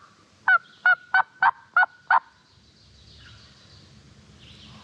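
A turkey call worked through a run of six yelps, about three a second, each note breaking from high to low. It is a hunter's yelping, meant to make a gobbler answer.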